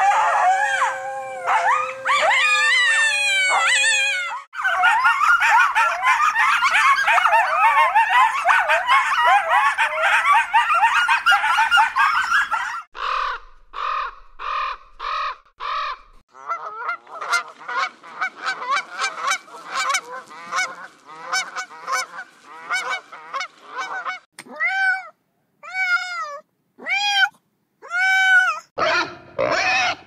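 Animal calls from a string of different recordings cut one after another. First come pitched cries over a held tone, then a dense chorus of overlapping calls for about eight seconds, then five evenly spaced calls, a fast run of short calls, and finally separate calls that drop in pitch.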